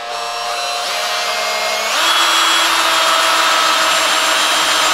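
Makita cordless drill in drilling mode, running a countersink drill bit into a softwood board with a steady motor whine. About two seconds in the sound gets louder and its pitch shifts as the bit bores deeper.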